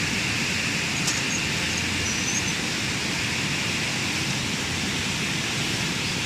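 Industrial bubble-type cherry tomato washing machine running: a steady rush of churning, spraying water.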